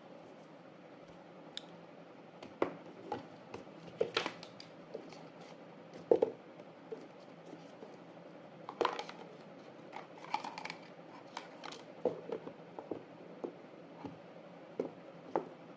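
Packaging being handled during an unboxing: irregular clicks, taps and short crinkling rustles, scattered a few per second with gaps between them.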